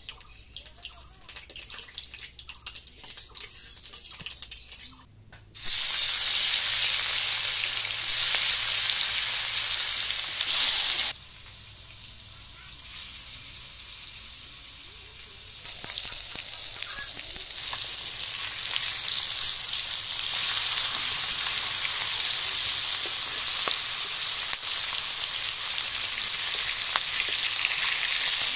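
Pieces of rohu fish frying in hot oil in a kadai. The sizzle starts suddenly and loud about five seconds in, drops back for a few seconds near the middle, then builds again and holds steady. Before it come light clicks of a metal spatula against the pan.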